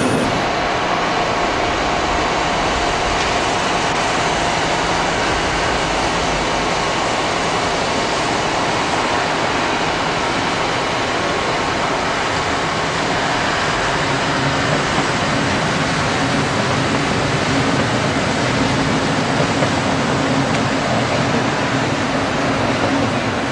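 Steady rushing noise of a train running on the rails, with a low hum joining about two-thirds of the way through.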